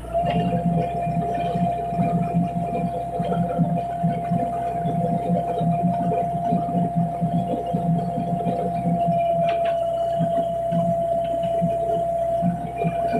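Excavator's diesel engine running under load with a low throb and a steady high hydraulic whine, as the machine presses bamboo piles into the ground. A few faint knocks come near the end.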